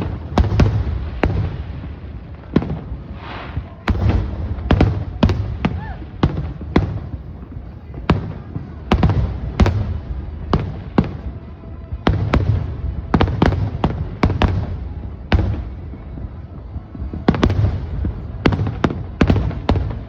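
Aerial fireworks display: sharp cracks and deep booms in rapid, irregular succession, several a second at the busiest, with short lulls about a third of the way in and again past the middle.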